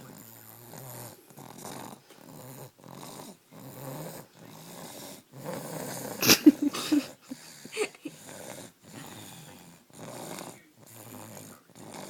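Baby snoring like an old man in a quick, even rhythm of rasping breaths, about three every two seconds. A little past halfway a louder, snortier breath carries a few short squeaky grunts, and one more comes soon after.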